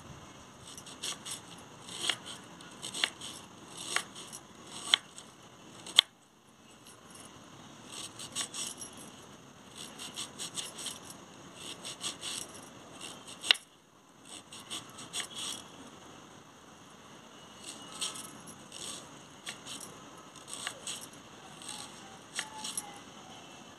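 Kitchen knife chopping a red onion on a wooden chopping board: irregular knocks of the blade against the wood, one or two a second, with two much sharper, louder knocks about a quarter and just over halfway through.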